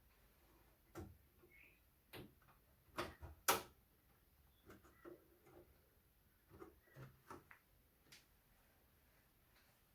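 Scattered light clicks and knocks from parts and cables being handled inside an opened Compaq Portable computer during disassembly, the sharpest knock about three and a half seconds in.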